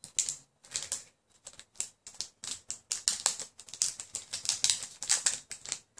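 Foil trading-card booster pack wrapper crinkling and crackling as it is worked open by hand: an uneven run of quick crackles and clicks.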